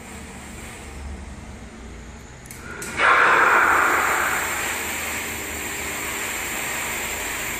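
Animatronic catfish working: a steady background noise, then about three seconds in a sudden loud rushing sound that fades over a second or so and settles to a steady level.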